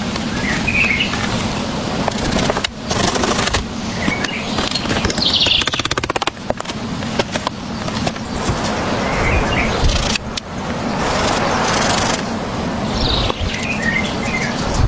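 Small birds chirping now and then over a steady background noise, with a few louder stretches of noise between the calls.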